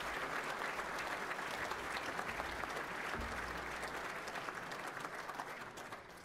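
Audience applauding, steady clapping from many hands that thins out and fades near the end.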